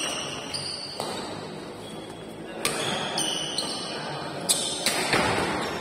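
Badminton rally: sharp racket strikes on the shuttlecock every second or two, starting with a jump smash, with short high shoe squeaks on the court floor between the hits.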